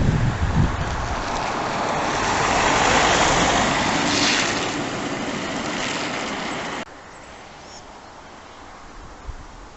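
Storm wind rushing and buffeting against the microphone, swelling to a peak about three seconds in, then cut off abruptly about seven seconds in, leaving a quieter outdoor background.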